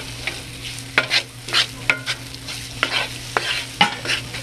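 A utensil stirring and scraping a thick, crumbly flour-and-butter roux around a cast iron skillet in quick, uneven strokes, about two or three a second, with a sizzle of the fat cooking underneath. The roux is at its early, lumpy stage, with the raw flour taste being cooked out.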